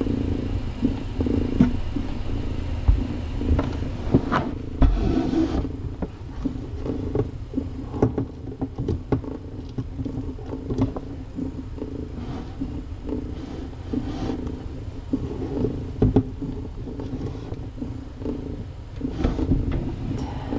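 Calico mother cat purring steadily close to the microphone while her kittens nurse, a continuous low rumble broken by a few light clicks.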